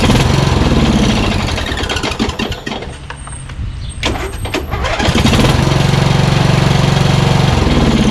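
Briggs & Stratton 15.5 hp lawn tractor engine cranked over by its electric starter in two tries: one of about three seconds, then a second from about four seconds in until near the end. The starter now turns the engine because the solenoid's ground contact has been ground down to bare metal.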